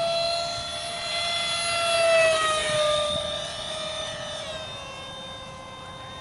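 Electric ducted fans of a 50 mm EDF radio-control F-22 Raptor model jet whining in flight. The whine rises slightly and is loudest about two seconds in, then falls in pitch and fades, dropping lower again about four and a half seconds in.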